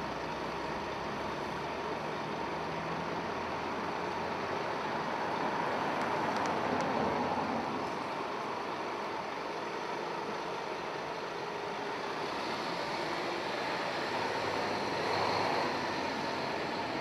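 Town street traffic: a steady wash of vehicle engine and tyre noise that swells about five seconds in and again near the end as vehicles move off and pass, one of them a bus pulling away.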